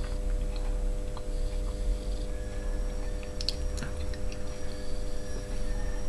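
A man chewing a cracker with his mouth closed: faint crunches and wet mouth sounds, a few small clicks near the middle, over a steady low hum.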